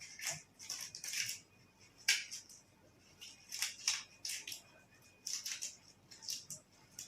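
Hands rubbing together in a series of short, irregular brushing strokes: the friction of hand washing after removing gloves.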